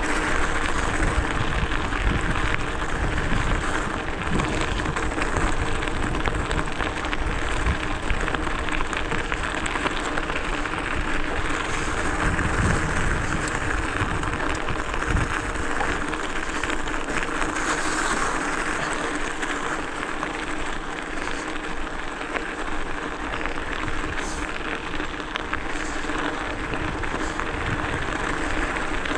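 Hardtail e-mountain bike ridden along a forest trail: continuous rolling and rattling noise from the tyres and bike, with wind on the helmet or chest camera's microphone and a steady hum throughout.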